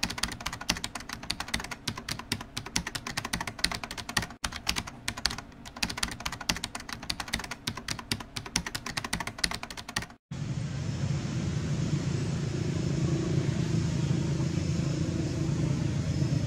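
Rapid keyboard-typing sound effect, a dense stream of clicks, which stops abruptly about ten seconds in. It is followed by a steady low rumble of outdoor background noise.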